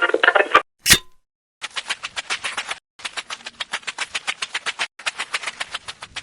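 Plastic LEGO bricks clicking together in a stop-motion speed build: a short rattle and a sharp click at the start, then three runs of rapid clicks, about ten a second, each lasting one to two seconds.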